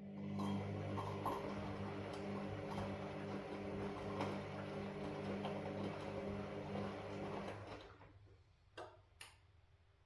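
Washing machine motor turning the drum for about eight seconds, a low hum with rattling ticks, then stopping in the pause of a wash cycle. Two sharp clicks follow near the end.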